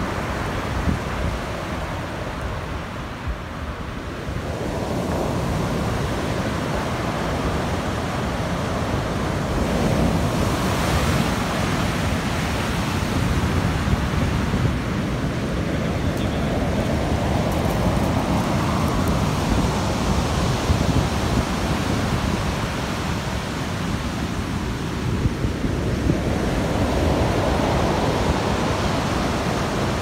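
Heavy surf breaking and washing up the beach, swelling and easing every several seconds, with wind rumbling on the microphone.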